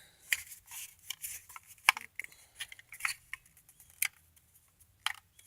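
Scattered light clicks and taps from a new all-plastic spring airsoft pistol and its packaging being handled.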